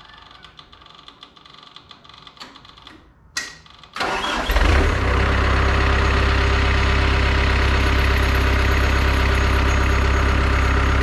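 Takeuchi TL250 skid steer's diesel engine cranking and catching about four seconds in, then settling into a steady idle. It is the first start on a freshly installed battery.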